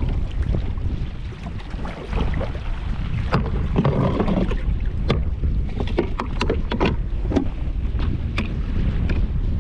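Wind buffeting the microphone with a steady rumble, while small waves slap against the kayak's hull in short, irregular knocks.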